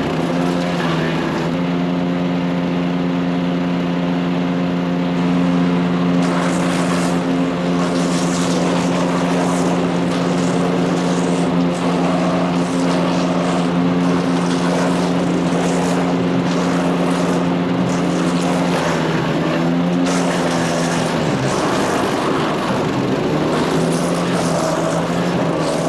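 The Power King chipper shredder's Kohler CH440 single-cylinder 14 HP engine running at high speed with a steady hum, with a gritty rattle over it for much of the time. About twenty seconds in, the engine note sags and breaks up for a couple of seconds, as if bogging under load, then steadies again.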